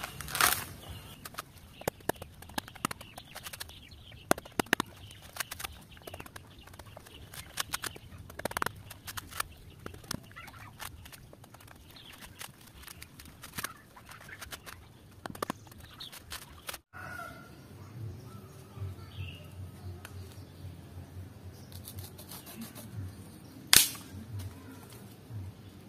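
Coconut husk being ripped off by hand: repeated fibrous tearing with many short sharp cracks as the fibres split away from the nut. Near the end comes a single much louder sharp crack as a bamboo strip is split with a knife.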